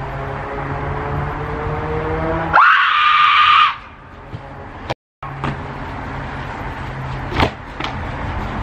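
A loud scream lasting about a second, sweeping up in pitch at its start, comes about two and a half seconds in over a steady low hum. The sound cuts out completely for a moment around five seconds in.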